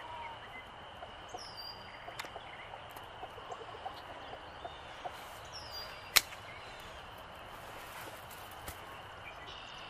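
Tin snips cutting through steel wire: one sharp snip about six seconds in, with a few smaller ticks of wire being handled. Birds chirp briefly a couple of times over a faint steady high-pitched drone.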